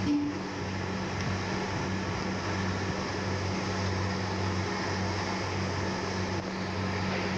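A steady machine hum, a low drone at two pitches over even background noise, with no distinct knocks from the ladle in the steel bowl.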